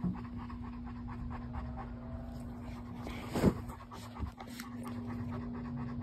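A dog panting rapidly close to the microphone, with one loud thump about halfway through.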